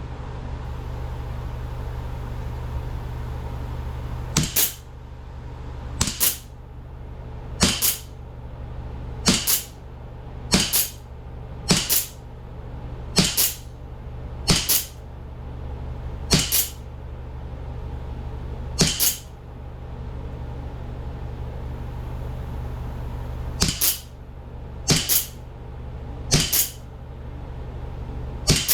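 Replica 1911 CO2 air pistol firing about fourteen sharp shots, one every one to two and a half seconds with a longer pause midway. A steady low hum runs underneath.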